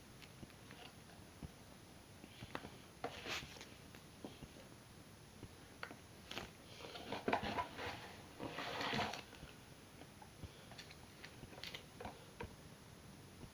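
Faint handling noise of a cardboard hair-dye box: scattered clicks and short rustles, with a longer stretch of rustling about seven to nine seconds in.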